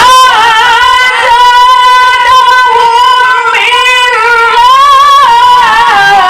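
A Quran reciter's voice holding one long, high melismatic note in tilawah style, with small ornamental wavers. It rises a little about five seconds in and steps down near the end.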